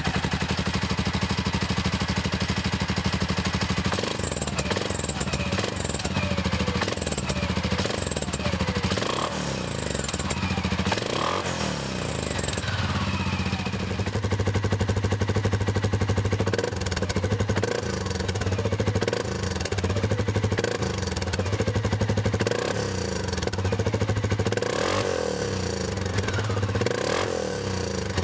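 Suzuki KingQuad 750 ATV's single-cylinder engine idling steadily just after starting, then revved up and let fall back several times, heard through its exhaust.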